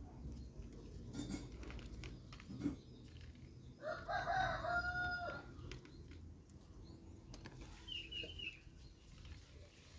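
A rooster crowing once, about four seconds in, for about a second and a half.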